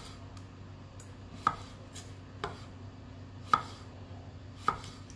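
Kitchen knife slicing thin rounds of lemon, the blade knocking on a wooden cutting board about five times at uneven intervals. A faint steady hum runs underneath.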